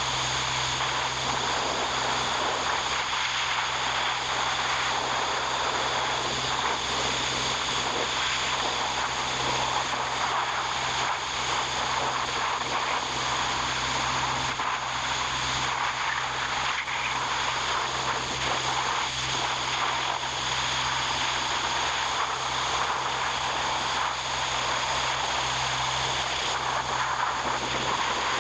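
A steady, even machine drone with a low hum under a broad hiss.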